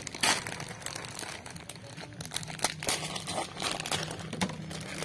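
Irregular rustling and crinkling handling noises with scattered sharp clicks, the loudest about a third of a second in.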